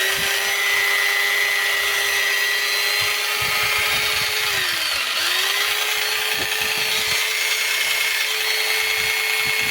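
Makita 4329 electric jigsaw running unloaded on a test run. About halfway through it is switched off, slowing for a moment, then switched back on and runs steadily. It is not perfectly quiet but much quieter, the gearbox knock largely cured after the gears were reassembled and greased.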